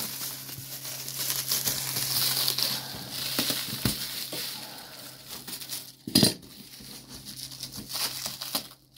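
Black plastic bag wrapping crinkling and rustling as a cardboard parcel is handled and unwrapped, with one sharp knock about six seconds in. A low steady hum runs underneath.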